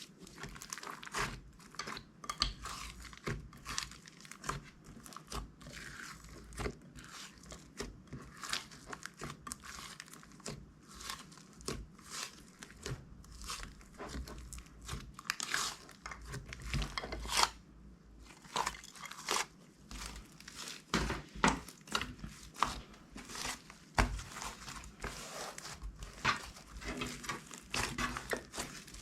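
Crunchy slime being squished and kneaded by hand, a dense run of irregular crackles and crinkles.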